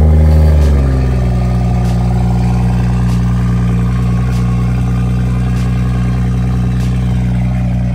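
BMW 540i's B58 turbocharged straight-six exhaust just after start-up: a loud starting flare that settles within about a second into a steady idle.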